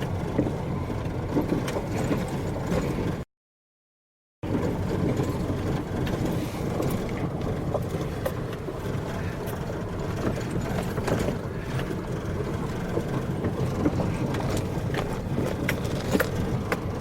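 Light rain pattering on an umbrella over a steady low rumble, with faint irregular ticks. About three seconds in, the sound cuts out completely for about a second, then resumes unchanged.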